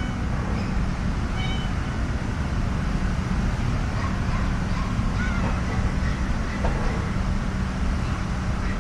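Steady low rumble of road traffic, with a cat meowing faintly and briefly twice.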